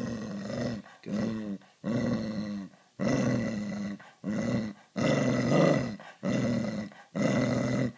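Beagle growling over and over, about eight low growls each lasting under a second with short breaks between them, warning off a hand as it guards a ball it won't give up.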